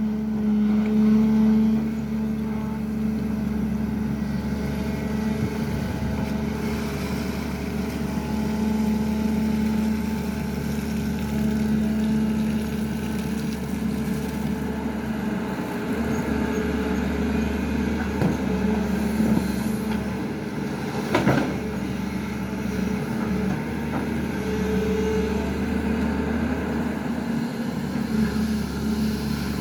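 SANY excavator's diesel engine running steadily, with one sharp knock a little past two-thirds of the way through.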